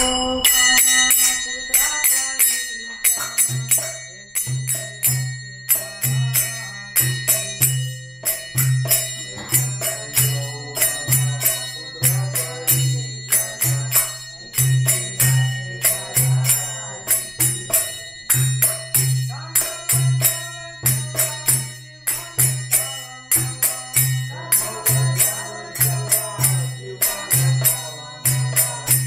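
Kirtan music: ringing hand cymbals (karatalas) struck in a fast, even rhythm, joined about three seconds in by a steady low drum beat.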